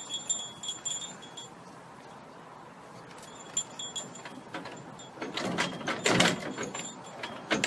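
A small bell tinkling in short jingles, twice in the first half, followed by a louder burst of noise about five to six and a half seconds in.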